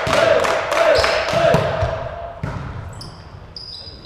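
Volleyball rally in a sports hall: the ball is struck several times with sharp smacks, the last and loudest about two and a half seconds in, over players' shouts. Near the end come short high squeaks of sports shoes on the hall floor.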